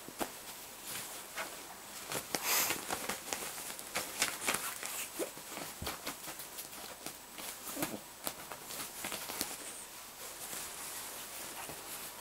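Bedding rustling and scratching as a Bengal kitten swats, grabs and claws at a feather wand toy on a duvet: irregular scuffs and sharp little taps, loudest about two and a half seconds in.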